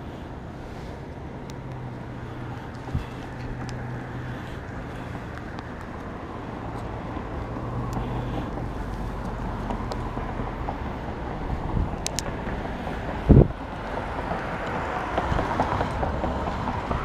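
Rustling and knocking of hands handling a small light and its strap right at the microphone, with one loud thump a little past two-thirds of the way through. A steady low hum sits underneath and fades about halfway.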